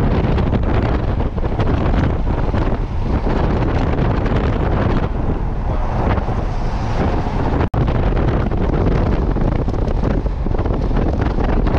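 Wind buffeting the microphone from a moving car, with rumbling road and engine noise underneath. It cuts out for an instant about eight seconds in.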